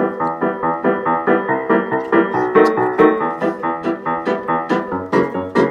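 Background music: a fast piano or keyboard tune, notes struck in a quick steady rhythm.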